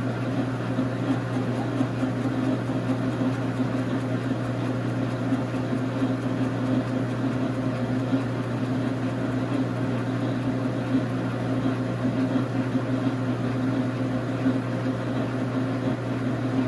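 1989 Dar Sin 12x37 gap-bed lathe running with a steady hum from its single-phase motor and gearing, the power crossfeed engaged for a first cut in 6061 aluminum.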